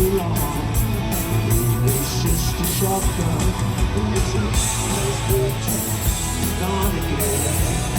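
Rock band playing live: electric guitar over bass and drums with a steady beat.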